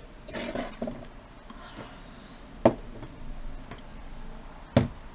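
Items being handled and set down on a workbench: a little rustling, then two sharp knocks about two seconds apart.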